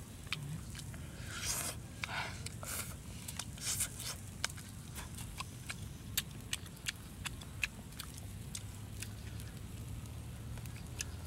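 Eating sounds: chewing and mouth clicks as roasted fish and egg are eaten by hand. Many short sharp clicks, with a few longer scraping rustles in the first few seconds as fingers pick at the food, over a low steady hum.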